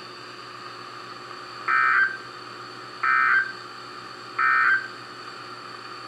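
Three short bursts of Emergency Alert System digital data tones, the end-of-message code that closes a NOAA Weather Radio alert, played through a weather radio's speaker. Each burst is a fraction of a second long, about 1.3 seconds apart, over a steady faint hiss.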